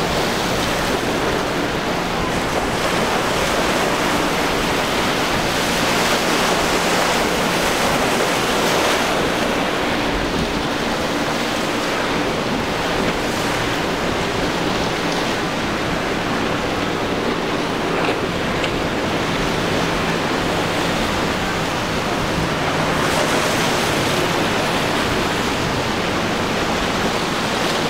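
Surf rushing and breaking steadily, with wind on the microphone and a faint low hum of boat engines underneath.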